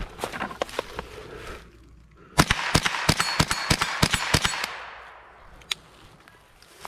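.22 rifle fired in a rapid string of shots, over a dozen in about two seconds.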